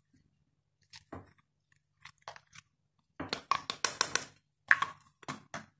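Spoon scraping and tapping flour out of a plastic measuring cup into a bowl of egg batter: a string of short scrapes, busiest in the second half.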